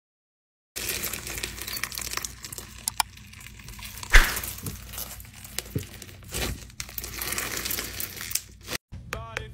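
Floam slime packed with foam beads being squeezed and kneaded by a gloved hand, giving a crunchy crackling with many small pops and clicks. It starts under a second in. One sharp click about four seconds in is the loudest moment.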